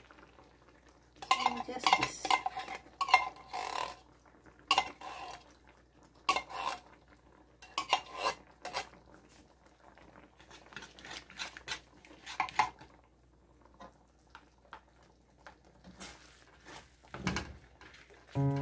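Metal ladle and spoon scraping and clinking against a metal wok while stirring a cream sauce, in irregular bursts with short pauses between, each hard scrape giving a brief metallic ring.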